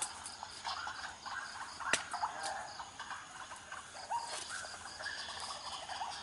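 An outdoor chorus of insects chirring steadily, with many short repeated animal calls and one sharp click about two seconds in.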